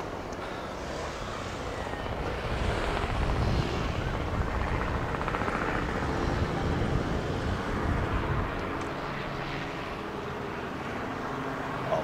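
Helicopter flying past, a steady rotor and engine drone that grows louder a couple of seconds in and eases off again near the end.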